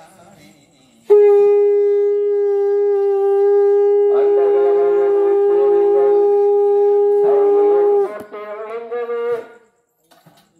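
Conch shell blown in one long steady blast of about seven seconds that ends abruptly, as during a puja. A wavering, shifting sound joins over it about four seconds in and trails on briefly after the blast stops.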